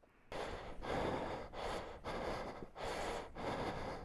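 A person breathing hard and fast, about six loud breaths in under four seconds, out of breath after heavy exertion.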